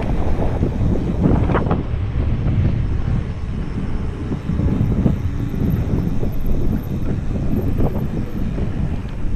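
Steady wind rumble on the microphone and road noise from a mountain bike rolling along a sealed road, heard on the rider's own camera.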